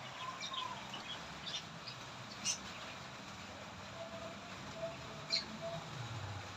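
Small birds chirping faintly over a steady outdoor hush, with two sharper, louder chirps standing out, one near the middle and one later on.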